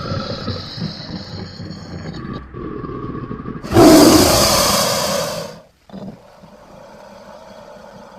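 Monster roar sound effects: a pitched growling roar, then a much louder, harsh roar about four seconds in that cuts off abruptly, followed by a quieter drawn-out growl.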